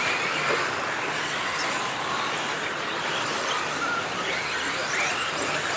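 Electric 1/10-scale stadium trucks with 13.5-turn brushless motors racing on a dirt track: a steady wash of sound with the motors' whine rising and falling as the trucks speed up and slow down.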